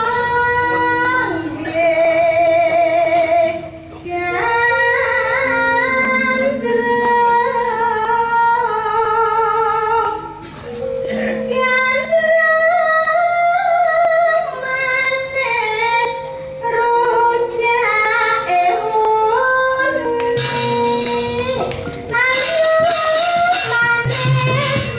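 Javanese gamelan playing with a female singer (pesindhen) holding long, wavering sung notes over the ensemble's sustained tones. The percussion gets louder and busier about twenty seconds in.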